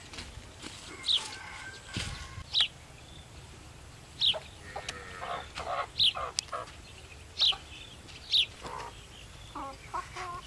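Chickens clucking, with short, sharp, high falling calls every second or two standing out as the loudest sounds.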